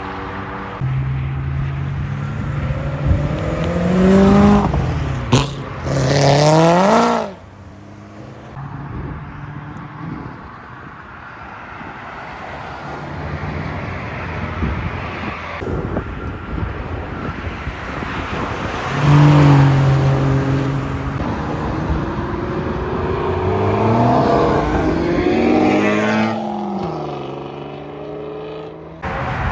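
Cars leaving a meet and accelerating hard past on the road, engines revving up through the gears one after another. Each pass climbs in pitch, dips briefly at a shift, then climbs again; the loudest passes come about four seconds in and again around twenty seconds in.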